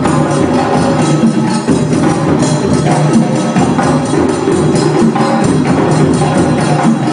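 Music with percussion: repeated tambourine-like strikes over a full, steady accompaniment.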